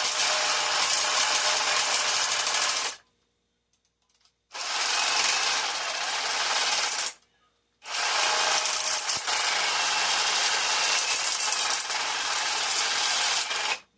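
Power tool cutting through aluminum bus-bar stock, running in three stretches of a few seconds that each stop abruptly: about 3 seconds, then a short break, about 2.5 seconds, a shorter break, and about 6 seconds.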